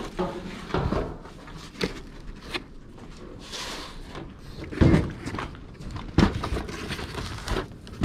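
Cardboard boxes being handled and opened: scattered thumps and knocks, the loudest about five seconds in, with a stretch of cardboard scraping and rustling in the middle.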